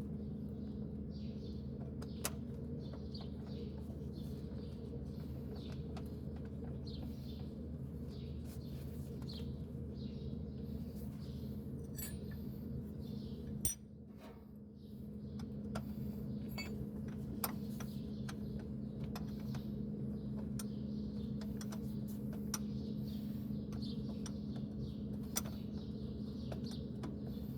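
Engine running steadily with a low hum, dropping away about 14 seconds in and building back up, with short chirps and light clicks over it.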